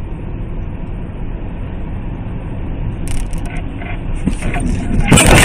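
Steady low road and engine rumble of a car driving on a highway, heard from inside the car. A few short knocks come about three to four seconds in, and a loud harsh noise starts near the end.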